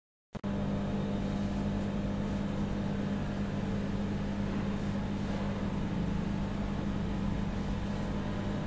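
Rasch RHE 2 chocolate egg foiling machine running: a steady mechanical hum with a low drone, cutting in suddenly with a short click just after the start.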